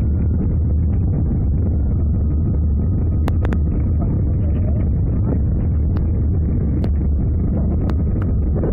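Muffled, steady low rumble of an Airbus A319's cabin on final approach, heard through a covered microphone, with a few sharp clicks from about three seconds in.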